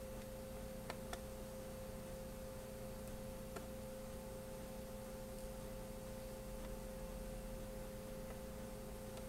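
Steady background hum with a constant tone, and a few faint clicks from a small screwdriver and hands working the screen's mounting screws on a laptop.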